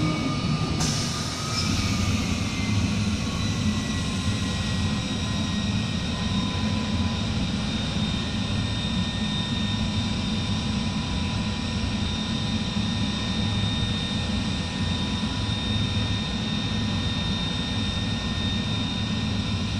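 CNC car-mat cutting machine running: a steady low drone with a high steady whine over it, and a hiss joining about a second in.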